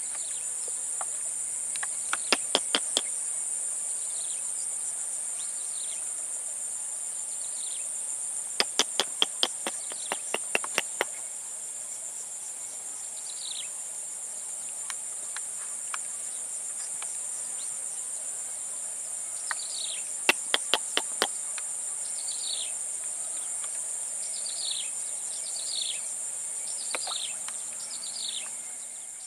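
Steady high-pitched insect chorus, typical of crickets, over a swamp. Short falling chirps come and go, more of them near the end, and three bursts of rapid clicks break in: early, about a third of the way through, and past the middle.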